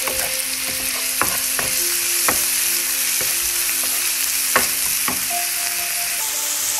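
Mushrooms sizzling as they fry in oil in a pan, stirred with a wooden spatula that knocks against the pan about five times.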